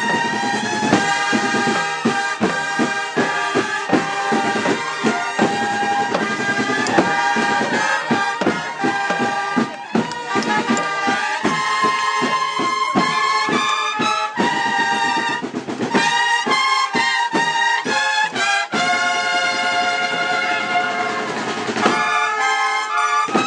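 Brass band with drums playing a Semana Santa processional march: trumpets and lower brass holding chords over a regular drum beat that is strongest in the first half.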